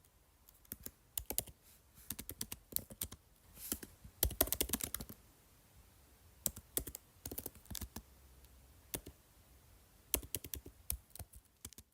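Many quick, sharp clicks and taps in irregular bursts, with short pauses between the bursts and a thicker flurry about four seconds in.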